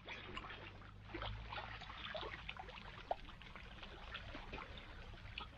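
Creek water trickling and lightly splashing around a person bathing in it, a scatter of small drips and sloshes over a low steady rumble.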